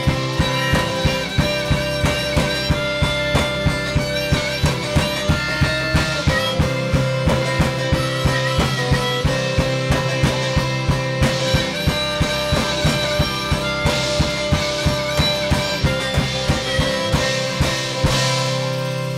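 Live rock band playing with a steady drum-kit beat under guitars and harmonica. Near the end the drums stop and the band holds a final ringing chord.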